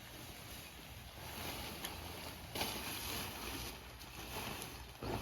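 Waterproof car cover rustling and swishing as it is pulled off a car, with louder surges partway through and a sharp flap near the end.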